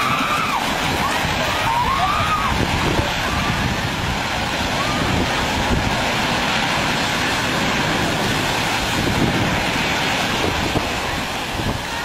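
Rough storm surf breaking on a rocky shore, a steady loud rush, with wind blowing on the microphone.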